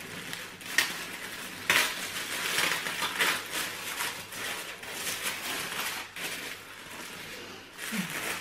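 White tissue paper rustling and crinkling as it is unfolded and lifted out of a box by hand, with a few sharper crackles in the first few seconds.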